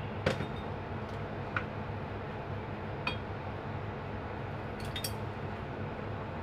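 A few light clinks of a spoon and glassware against a glass mug, the sharpest about a second in and a double clink near the end, over a steady low hum.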